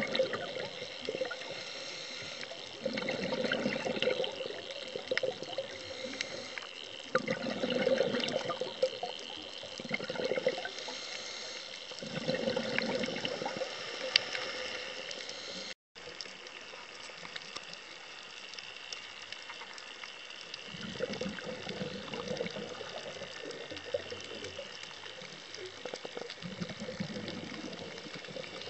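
Underwater sound of a scuba diver breathing: bursts of exhaled bubbles rumbling every few seconds over a steady high crackling.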